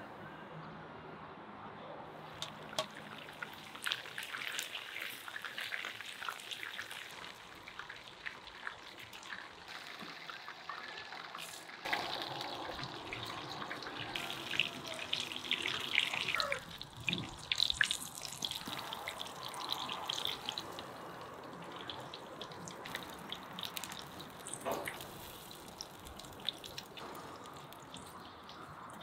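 Fish cutlets sizzling and crackling in oil in a frying pan, with many sharp pops; it grows louder and busier about halfway through.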